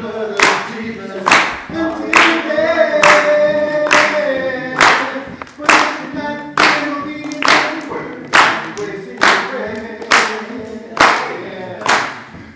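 A group of voices singing a song while hands clap steadily on the beat, about one clap a second.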